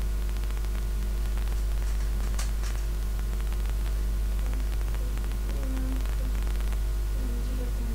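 Loud, steady electrical mains hum and hiss from a poor recording setup. Under it, rapid faint clicking of a plastic 3x3 puzzle cube being turned.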